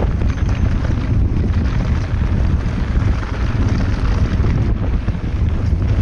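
Wind buffeting the microphone while a mountain bike is ridden along a dirt trail: a loud, steady rumble with no breaks.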